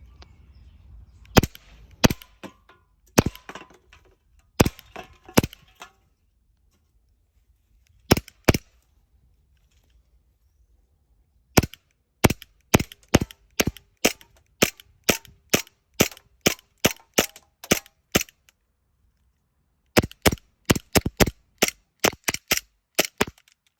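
Umarex Glock 17 Gen 4 gas-blowback airsoft pistol firing, each shot a sharp crack of the slide cycling. A few spaced single shots and a quick pair come first, then a steady string of about thirteen shots at roughly two a second. After a short pause a faster string of about ten shots follows near the end.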